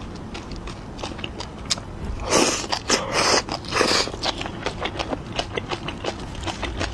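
Close-miked eating: wet mouth clicks of chewing throughout, with three louder, noisier bites about two to four seconds in.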